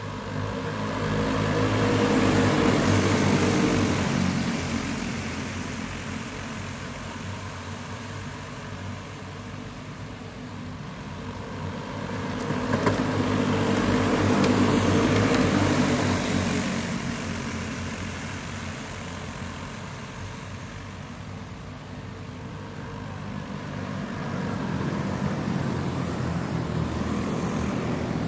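A pack of junior go-karts racing on a dirt oval, their small engines droning. The sound swells loud as the field passes and fades as it goes on round the track, three times about eleven seconds apart.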